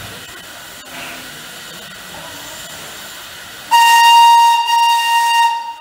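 FS Gr 640 steam locomotive standing with a steady steam hiss, then, about four seconds in, its steam whistle gives one loud blast on a single steady note, held for about two seconds before cutting off.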